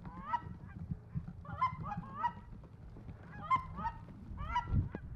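Geese calling overhead: short, high yelping calls in about five bursts of two or three, over a low rumble.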